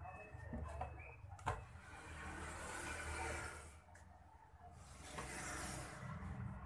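Hands handling and fitting cut plastic pipe sections on a workbench: a sharp knock about a second and a half in, then two longer stretches of scraping, rustling noise.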